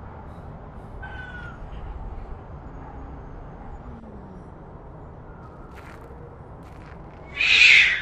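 Low outdoor background noise, with a faint short falling call about a second in. Near the end comes one loud, harsh animal call whose pitch falls away.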